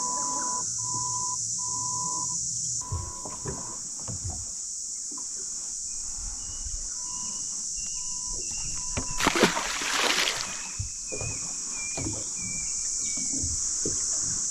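Steady high-pitched chorus of insects, with a run of short, evenly spaced tones in the first few seconds and a brief loud rushing noise about nine seconds in.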